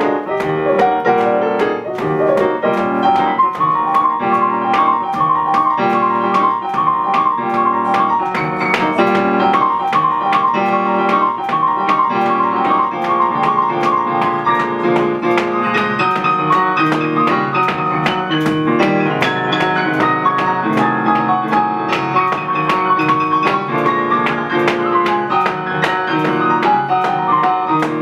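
Grand piano played solo: a busy jazz piece with many quick notes over a moving left hand, and a high figure repeated over and over for several seconds in the first half.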